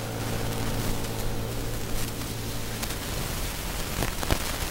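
Steady outdoor hiss of noise, with a low hum that fades out about three seconds in and a few sharp knocks near the end.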